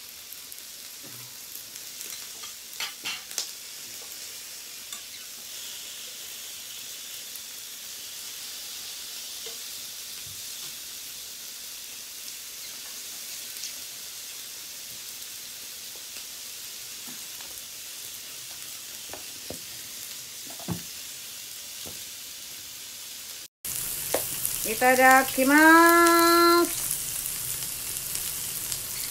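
Meat sizzling on a tabletop electric yakiniku grill plate: a steady frying hiss with a few light clicks of tongs. Near the end the sound cuts out for an instant and returns louder, and a short pitched sound rises and then holds for about two seconds.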